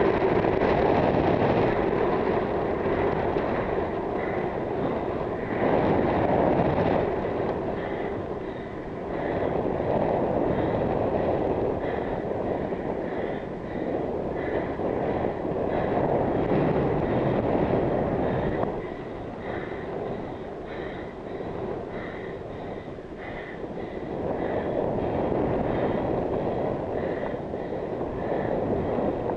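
Wind rushing over a helmet camera's microphone on a road bike riding at around 15 mph, with road noise, swelling and fading in waves every few seconds.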